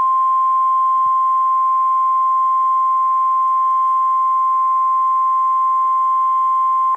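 NOAA Weather Radio 1050 Hz warning alarm tone: one loud, steady high tone held unbroken, cutting off suddenly at the very end. It is the alert that signals a warning broadcast is about to follow.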